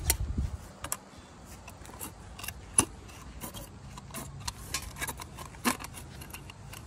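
Tin snips cutting thin copper downspout: irregular sharp metallic snips and clinks, with a low thump right at the start.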